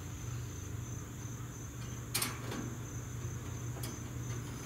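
A steady high-pitched insect trill over a low hum, with two sharp clicks, the first about two seconds in and a fainter one near four seconds.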